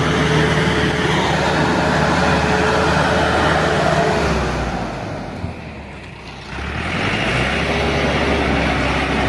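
Lovol tractor's diesel engine running steadily under load. It falls away about five seconds in and picks up again a second or so later.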